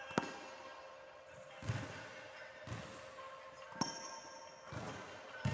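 Tennis balls being struck with rackets and bouncing on a wooden sports-hall floor: sharp pocks about once a second, with a short echo in the large hall.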